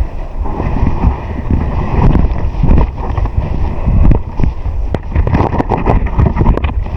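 Wind buffeting the microphone, a loud low rumble that rises and falls, with scattered sharp clicks and knocks.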